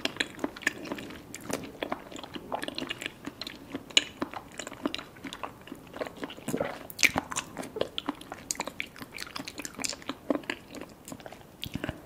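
Close-miked chewing of soft Kyoho grape jelly: an irregular stream of wet, squishy mouth clicks and smacks as the jelly is worked with closed lips.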